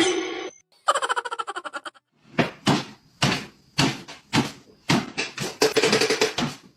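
A sharp knock, a quick run of clicks, then a series of short knocks or thumps, about two or three a second.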